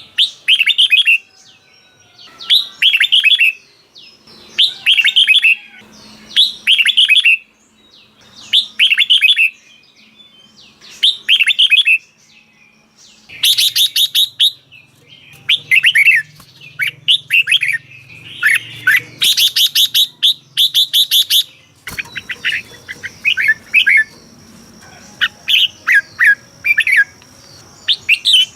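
Red-whiskered bulbul singing short, bright whistled phrases over and over, about one a second, with a brief pause about halfway, after which the phrases come thicker. Near the end the background changes and a faint steady high tone runs under the song.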